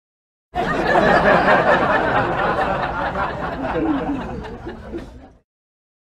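Laughter sound effect: a dense burst of people laughing. It starts suddenly about half a second in, tapers a little, and cuts off abruptly near the end.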